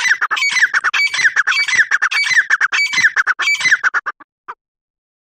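Grey francolin calling: a rapid run of short, downward-slurred notes for about four seconds, then one last note.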